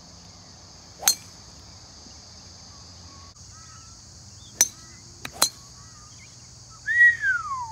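Sharp clicks of golf clubs striking balls on a driving range: one about a second in, then two close together in the middle that fall around a driver swing. A steady high insect buzz runs underneath with a few faint bird chirps, and near the end a loud whistle glides down in pitch, the loudest sound.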